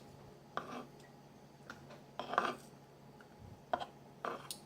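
A utensil clinking and scraping against a bowl as cooked vegetables and beef are mixed together, in short, uneven bursts about six times.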